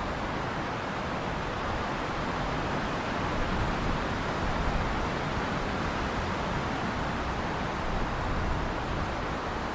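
Strong wind blowing steadily, a dense rushing noise that swells slightly in gusts, with a low buffeting rumble underneath.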